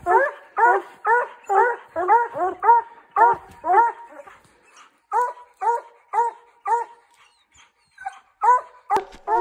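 Hunting hounds barking at a treed mountain lion, a steady run of barks at about two a second with a couple of short breaks. This is tree barking: the dogs are holding the cat up the tree.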